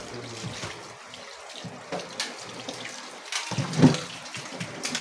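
Kitchen tap running into a sink while raw chicken pieces are rinsed by hand under the stream, with a louder knock just before the end.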